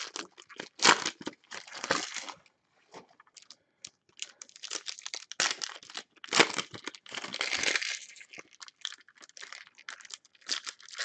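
Foil trading-card packs being torn open and crinkled by hand: irregular bursts of crackling foil wrapper, with a lull of about two seconds partway through.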